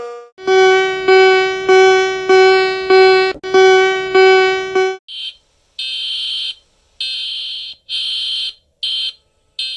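Two electronic emergency alert tones in turn: first a pitched beep repeated about seven times, each with a sharp start that fades; then a shrill high-pitched beep sounding in uneven on-off bursts.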